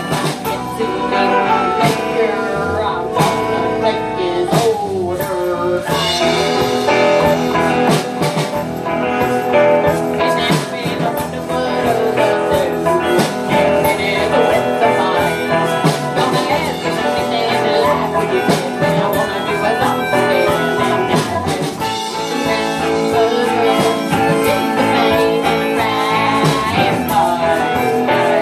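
Live band playing a song on electric guitars, mandolin and bass, with a steady strummed rhythm.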